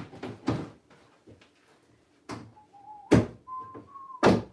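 A series of sharp knocks and thuds of objects being handled and set down, the loudest about three seconds in and just before the end. Faint short whistle-like tones sound in between.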